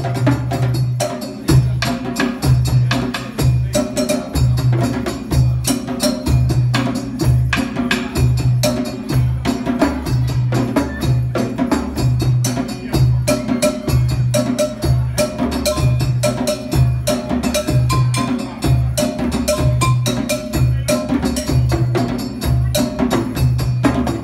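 West African hand-drum ensemble playing a steady, driving rhythm: sharp djembe slaps and tones over a deep bass beat from barrel bass drums that repeats about one and a half times a second.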